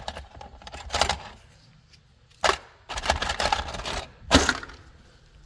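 A few sharp knocks and clicks from hardware being handled during the work, with the loudest knock a little past four seconds in.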